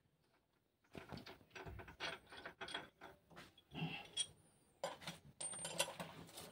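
Irregular metal clinks, knocks and scraping from hand tools working inside a stripped diesel engine block, starting about a second in, with a couple of brief high squeaks near the end.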